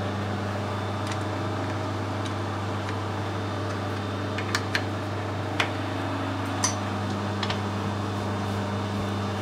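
Steady low machine hum in a workshop, with a few light metallic clicks about halfway through as a lathe parting-off blade is slid and set in its holder by hand.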